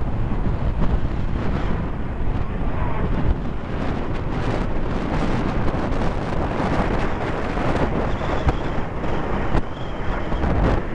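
Strong wind buffeting the microphone over the jet noise of a formation of BAE Hawk jets passing overhead, with a faint high whine in the last few seconds.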